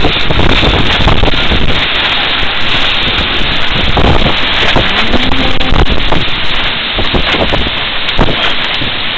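Very strong wind buffeting the microphone, with driving rain: a loud, unbroken rush of wind noise.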